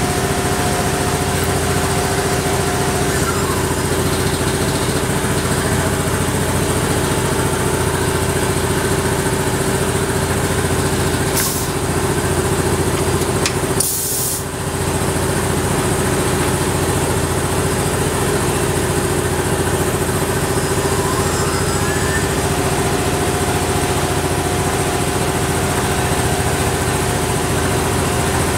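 Steady hum and hiss of a Tormach PCNC 1100 CNC mill running, with a constant tone through it. It breaks off briefly twice near the middle.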